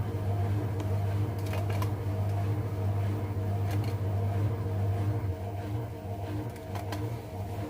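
Washing machine motor running with a steady hum, with a few brief clicks or rattles.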